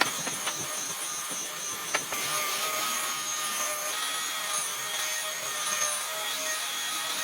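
An electric power tool running steadily with a faint whine, with one sharp click about two seconds in.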